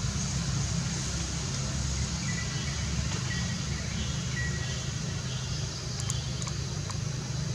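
Steady low rumble with an even background hiss. A few faint, short high chirps come near the middle, and faint ticks come near the end.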